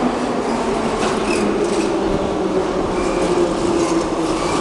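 Metro train pulling into an underground station, its cars rolling past along the platform: a steady rumble of wheels and running gear with a faint low hum and a few light clicks.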